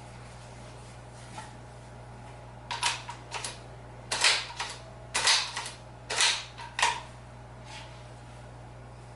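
A series of short, sharp cracks or clicks in loose clusters, about a dozen over four seconds, over a steady low hum.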